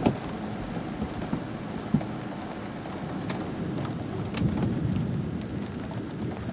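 Thunderstorm rain falling steadily, with scattered sharp ticks of drops striking close by. A low rumble of thunder swells briefly about four and a half seconds in.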